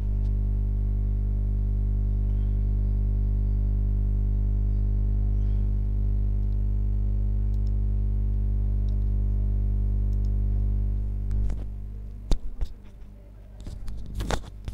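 Steady low electrical hum, a mains buzz with a stack of overtones, that fades out about eleven and a half seconds in. A few sharp clicks and knocks follow near the end.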